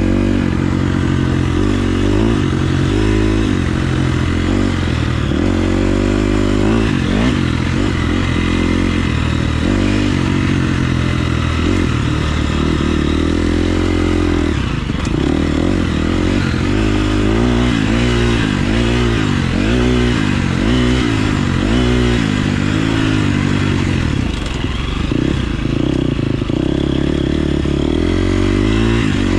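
KTM 350 SX-F's single-cylinder four-stroke engine being ridden hard, its pitch rising and falling over and over as the throttle opens and closes and the gears change.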